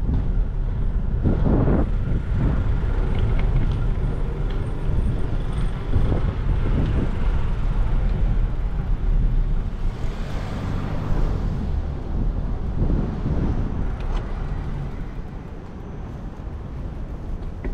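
City street traffic: motor vehicles running and passing, over a steady low rumble.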